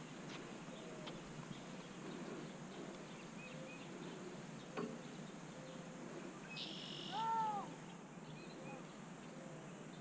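Quiet outdoor ambience with faint bird chirps and one louder, drawn-out arching bird call about seven seconds in. A single sharp click comes about five seconds in.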